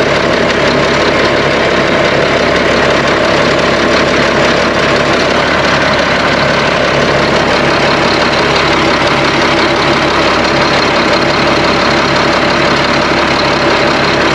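Truck engine idling steadily through its freshly welded exhaust, which now runs quiet.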